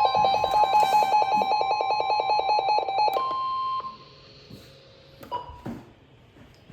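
Electronic emergency alert tone: a steady high beep over a rapid run of pulsing beeps, about ten a second, that stops abruptly about three to four seconds in. After it, only faint room background with a couple of soft clicks.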